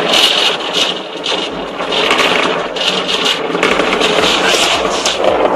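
Proton-M rocket's engines making a loud, rough, crackling rush of noise that dips briefly about a second in.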